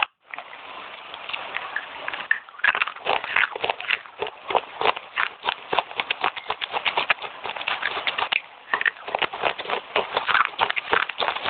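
Close chewing and crunching of wet red clay chips: fast, irregular crunches, thick and continuous from about two and a half seconds in after a softer start.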